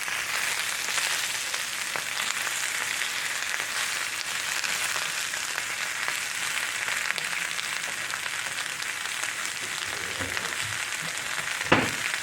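Cabbage frying in a cast-iron skillet: a steady sizzle. A single sharp knock near the end.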